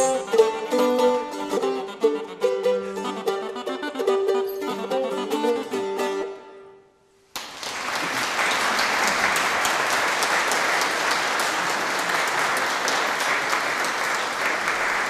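Wooden recorder and a small lute playing the closing bars of a piece over a held drone note, dying away about six seconds in. A moment later steady audience applause begins.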